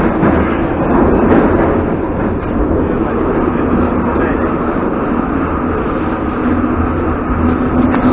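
Interior noise of a moving Ezh3 metro car: a steady rumble of wheels and running gear. A steady hum joins about six seconds in.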